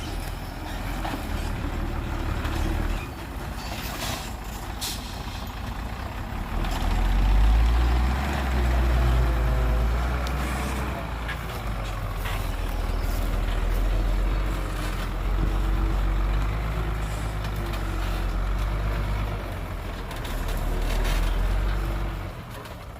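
Heavy diesel dump truck engine running, its deep rumble rising and falling as it works, with a few short sharp noises about four to five seconds in.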